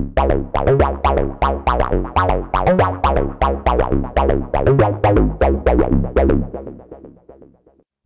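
Tone2 Saurus 3 software synthesizer playing its '303 D MF' arpeggiator preset: a fast, even run of short, plucky 303-style synth-bass notes. The run dies away over the last second or so.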